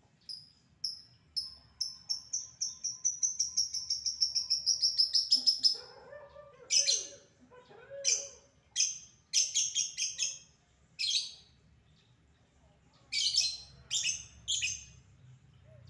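Caged lovebird giving a long ngekek trill: a run of high, rapid notes that speeds up and grows louder for about five seconds. It then breaks into sharp single chirps, a run of them and then a shorter second group near the end.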